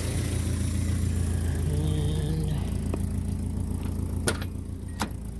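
Idling engine of a 1986 Nissan D21 pickup, a steady low rumble, run after a coolant refill to check for leaks while it slowly warms up. Two sharp clicks come near the end.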